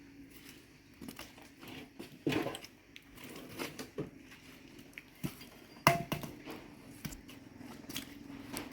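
Scattered light knocks and clicks, the loudest about six seconds in, over a faint steady hum.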